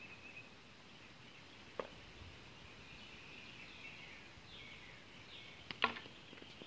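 Wiffle ball impact: one sharp, quick double knock near the end, with a fainter tap about two seconds in. Faint birdsong in the background.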